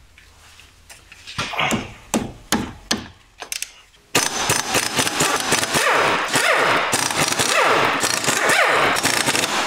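A few brief knocks, then about four seconds in a compact impact wrench starts hammering on the flywheel bolts to undo them, a continuous rapid rattle whose pitch keeps sweeping up and down, stopping just before the end.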